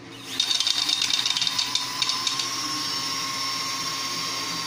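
Small electric motor of a 3D-printed card shuffler starting up a moment in and running with a steady whine. Cards flick rapidly through it for about the first two seconds as the deck is dealt out to both sides, then the motor whine carries on alone.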